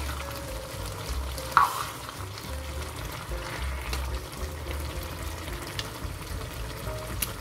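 Broccoli and vegetable stew simmering and sizzling in a non-stick frying pan while a metal spoon stirs it. One short, sharp knock comes about a second and a half in.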